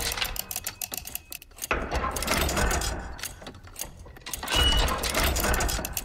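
Designed steampunk factory machine sound effect playing back: rapid mechanical clicking and clatter over a low rumble that swells and fades in a repeating cycle, with a brief high tone about four and a half seconds in.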